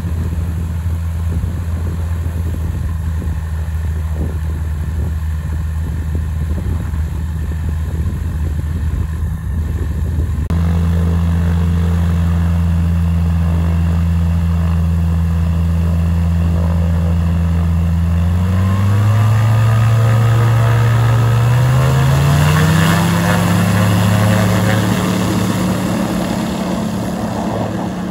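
Seaplane engine running steadily, turning louder about ten seconds in, then revving up in two steps, rising in pitch, in the last third.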